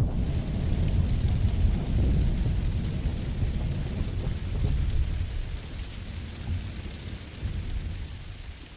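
Rain pattering on a car's windscreen under a long, low thunder rumble that slowly dies away.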